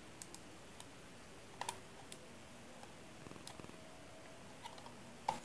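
Faint, scattered clicks and taps of small plastic parts being handled: a miniature goal with a ball being fitted onto a plastic figurine base, with a slightly louder click near the end.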